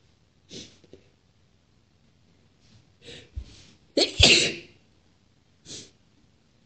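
A woman sneezes once, wet and forceful, about four seconds in; it is the loudest sound. Short, fainter breath sounds come before it and one more follows near the end.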